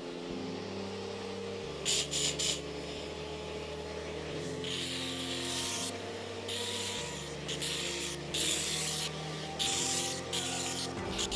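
Background music with a stepping bass line, over a hiss that comes and goes in bursts of about a second as the Bissell HydroSteam spot cleaner's tool works over couch upholstery.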